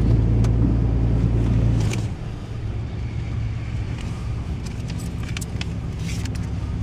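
Pickup truck engine running, heard from inside the cab: a strong low drone that drops to a quieter idle about two seconds in, with a few light clicks and rattles.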